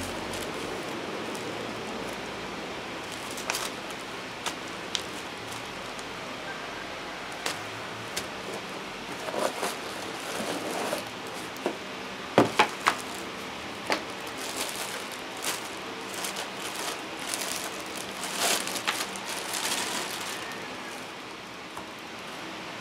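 Clear plastic bag crinkling and rustling as a power sander is unwrapped by hand, with scattered clicks and knocks of handling, the loudest a quick cluster of sharp clicks about halfway through. A steady background hiss runs underneath.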